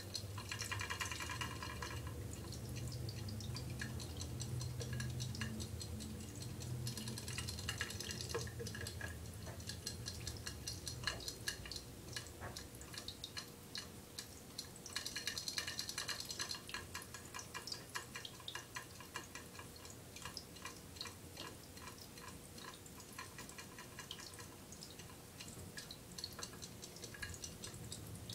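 Water trickling and dripping in a ceramic pet drinking fountain, with many small irregular ticks and drips and a few louder splashy patches.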